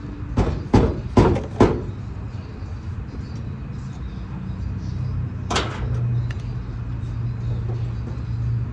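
Four sharp knocks in quick succession in the first two seconds, then one more about five and a half seconds in, over a steady low hum.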